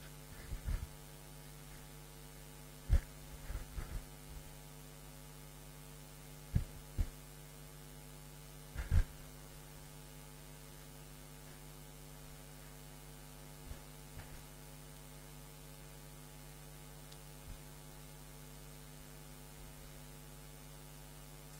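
Steady electrical hum, with several short low thumps scattered through the first half, the loudest about 3 and 9 seconds in.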